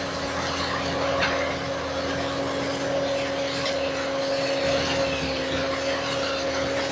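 Skid steer loader running steadily, its engine and hydraulics giving a constant whine over a broad rumble, with a brief click about a second in.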